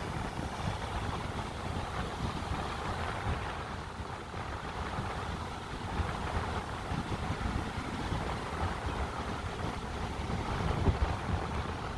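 Wind buffeting the microphone in uneven gusts over the steady wash of sea waves.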